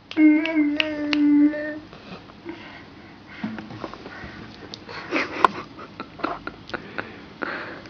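A transverse flute blown by a small child: one steady, slightly wavering low note held for about a second and a half, then breathy puffs of air over the mouthpiece that produce no clear note. Scattered clicks and knocks come from the flute and a guitar being handled.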